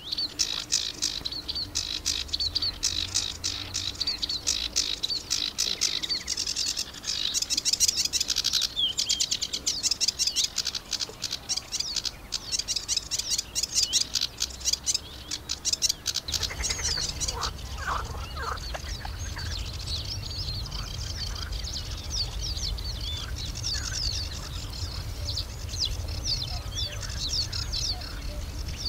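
Small songbirds singing in a reedbed: a dense, fast chattering run of high chirps and trills for about the first sixteen seconds, then sparser, spaced chirps and short phrases over a low rumble of wind.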